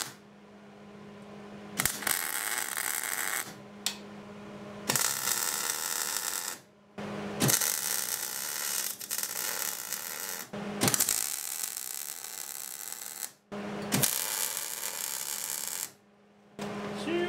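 MIG welder arc crackling on steel angle iron in about five runs of one to three seconds each, every run cutting off abruptly before a short pause: weld beads being laid in stitches.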